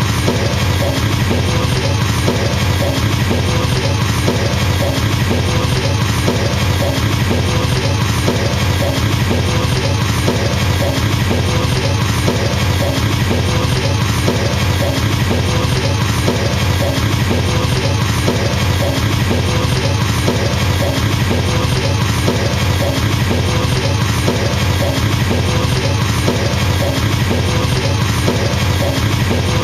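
Bass drums of a drum kit played with a double bass pedal in a continuous, very fast roll, a steady machine-gun or helicopter-like stream of kicks.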